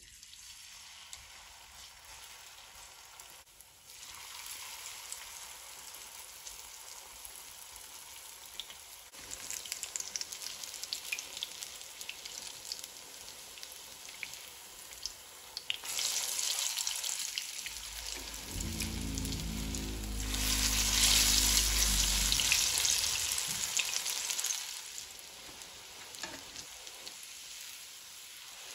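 Courgette and carrot fritters shallow-frying in hot oil in a pan: a steady sizzle with small crackling pops, growing louder about nine seconds in and loudest about two-thirds of the way through.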